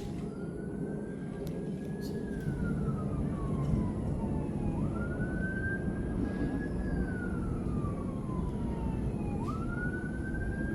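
An emergency-vehicle siren wailing, each cycle rising quickly then falling slowly, about three times, over a steady low rumble.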